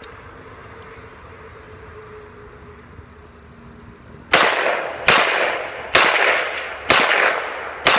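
AR-15 rifle firing five semi-automatic shots about a second apart, starting about four seconds in. Each shot is a sharp crack followed by a fading echo.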